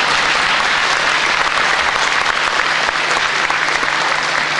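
Audience applauding steadily, a dense even clapping throughout.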